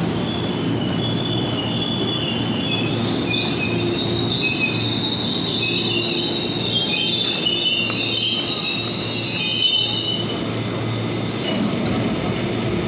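Commuter electric train pulling into the platform, its wheels squealing in several high, shifting tones over a steady low rumble. The squeal dies away about ten seconds in.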